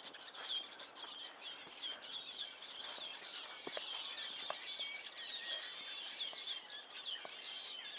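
A large flock of songbirds chattering together in a tree: a dense, unbroken chorus of many overlapping high chirps and calls.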